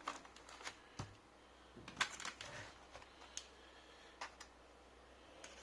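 Scattered light clicks and taps of a screwdriver and plastic laptop parts being handled while an HP G62 laptop is taken apart, the sharpest knock about two seconds in.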